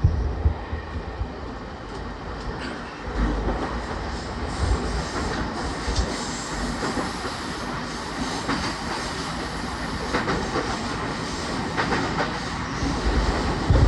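JR East E231 series 1000 commuter train running at speed, heard inside motor car MoHa E231-1076: a steady rumble of wheels on rail with occasional sharp knocks.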